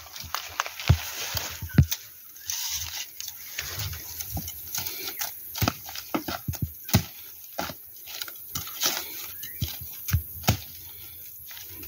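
Machete chopping at bamboo shoots and stems at the base of a bamboo clump: irregular sharp strikes among the crackling rustle of dry leaves and stalks being handled.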